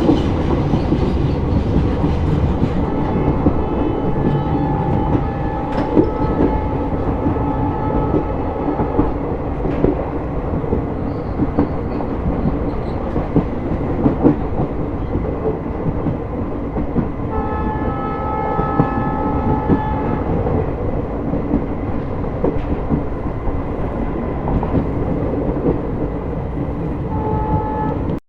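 Passenger train running on the track with steady rumble and wheel clatter, heard from aboard. The diesel locomotive's horn sounds two long blasts, a few seconds in and about two-thirds of the way through, and a short toot near the end.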